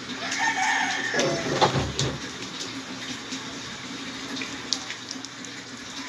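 A rooster crowing once: a long held call that starts just after the beginning and falls away about two seconds in. A sharp knock sounds in the middle of it.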